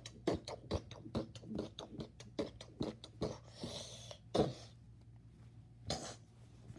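A child making rapid percussive mouth noises as fight sound effects, about four short bursts a second, then a hiss about three and a half seconds in and a few louder single hits near four and a half and six seconds.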